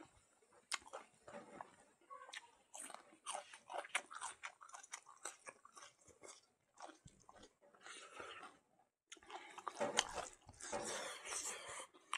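A person chewing and crunching food with the mouth, in irregular bites and wet smacks. The chewing grows busier and louder about ten seconds in.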